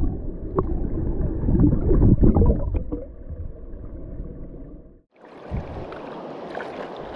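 Muffled gurgling and sloshing of water with scattered knocks, dense and low for the first five seconds. After a brief break about five seconds in, the steady rush of a stream.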